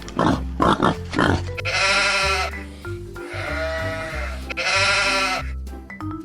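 Bleating farm-animal sound effects over background music. A few short grunts come in the first second and a half, followed by three drawn-out bleats.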